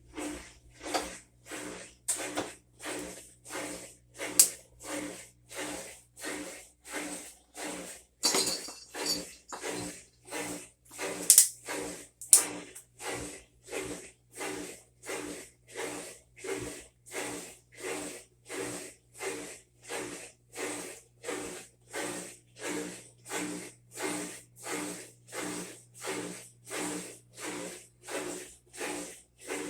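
Whirlpool WTW4800XQ2 top-load washer running its calibration cycle: the drive motor pulses in a steady rhythm, about three strokes every two seconds, each stroke a short whirring hum. A few sharp clicks stand out in the first half.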